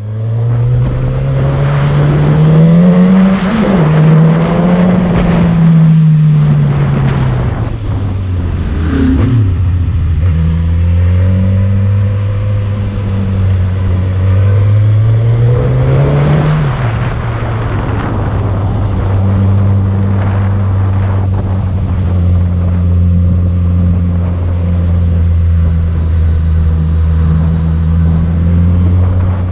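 Motorcycle engine heard from the rider's seat while climbing a winding road: the revs rise and then drop sharply at gear changes, about three and sixteen seconds in, ease off in between, and hold steady through the second half, over rushing wind and road noise.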